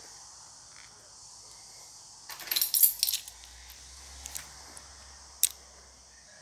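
Keys jangling and clinking for about a second as the wooden front door of the flat is unlocked and opened. A single sharp metallic click of the door latch follows about two seconds later.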